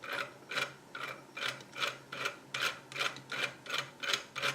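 3D-printed plastic gears of a model manual transmission clicking as the shaft is turned by hand, in short, even bursts about two or three times a second. The gears are turning freely after the bell housing has been fitted.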